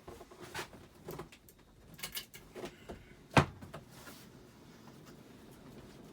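Casablanca Panama II ceiling fan just switched to high, with irregular clicks and knocks over its quiet running, one sharp knock about three and a half seconds in. The fan has a slight wobble from being out of balance.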